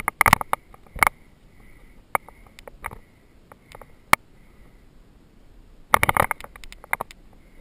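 Footsteps and brush crackling as a person moves through leafy woodland undergrowth: scattered sharp crackles and knocks about once a second, then a quick flurry of them about six seconds in as the pace picks up.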